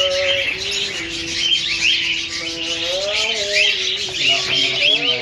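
Many small cage birds chirping and twittering together, a dense stream of quick high chirps, over a lower steady tone that bends in pitch now and then.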